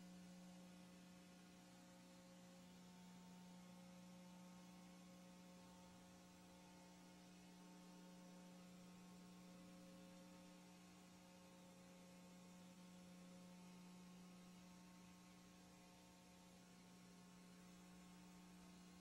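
Near silence: a faint steady low hum with a few higher overtones, unchanging throughout.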